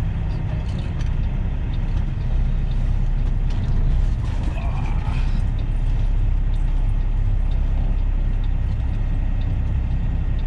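Semi-truck diesel engine running steadily at low speed while the rig creeps forward, a dense low rumble with a few faint clicks over it.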